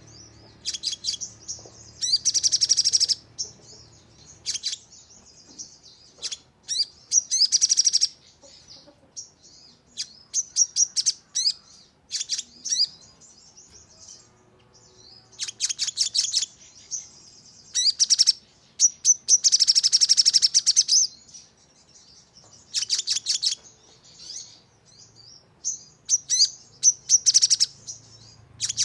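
Crimson sunbird (sogon) singing: sharp, high-pitched chirps broken by repeated loud rapid trills of about a second each, the fast 'nembak' song used to provoke other sogon into singing.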